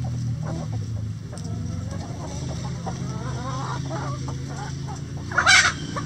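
A backyard flock of hens clucking and chattering in short, soft calls, with one short loud call near the end.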